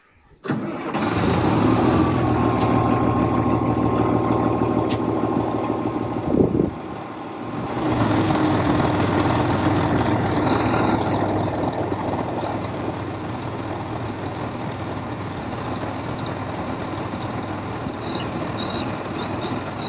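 Diesel engine of a converted fire-truck service truck running steadily while its truck-mounted Palfinger knuckle-boom crane is worked hydraulically, with a whine early on. The level dips briefly about seven seconds in, then the engine settles back to a steady run.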